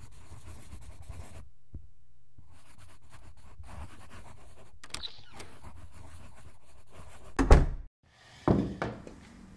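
Soft laptop-keyboard typing over a steady low hum, then a loud thump about seven and a half seconds in and a second, weaker knock about a second later.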